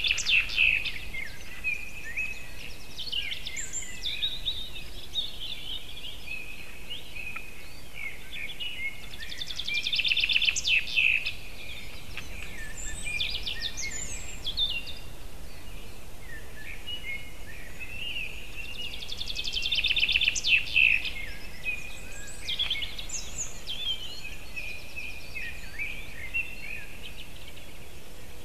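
Forest songbirds singing. One bird repeats a short song with a fast trill about every ten seconds, and other birds give shorter calls and chirps in between, over a faint steady hiss.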